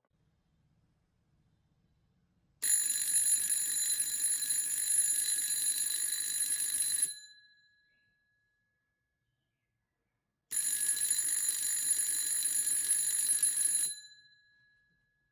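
2-inch 220 V AC electric disc bell ringing, its hammer rattling rapidly against the metal gong. It rings twice, for about four and a half seconds and then about three seconds, and each time the gong's tone fades away after the ringing stops.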